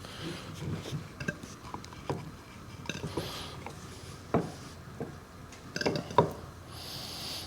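Metal parts of a tractor hydraulic pump being handled during reassembly: scattered light clinks and knocks of metal on metal, a few sharper ones in the second half, with brief rubbing hiss.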